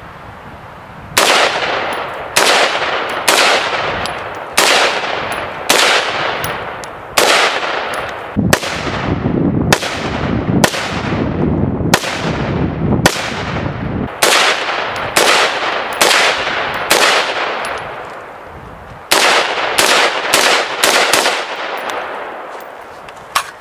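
A Stag Arms AR-15 Model 1 semi-automatic rifle in 5.56 firing about twenty single shots, one per trigger pull, each followed by a fading echo. The shots come about one a second, then after a short pause a quicker string of shots comes near the end.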